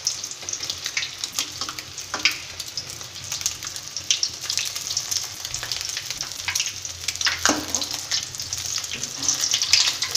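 Eggs frying in hot oil in a pan: a steady sizzle with a dense crackle of spattering.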